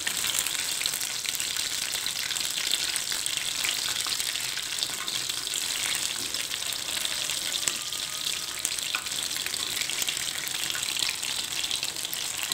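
Battered banana pieces deep-frying in hot oil in a wok: a steady sizzle full of fine crackles.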